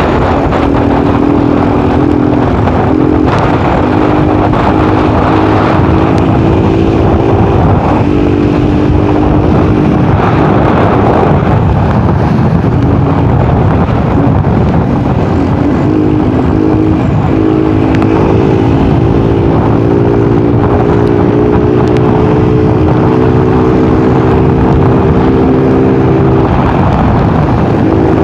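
Motorcycle engine running at road speed under heavy wind rush. The engine note drops out briefly around eight and ten seconds in, then holds steady and climbs slowly in the later part as the bike gathers speed.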